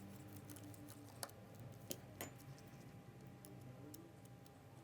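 Near silence, with a few faint small clicks of a tool against the phone's small metal and plastic parts, about a second in and twice around two seconds in, over a faint steady hum.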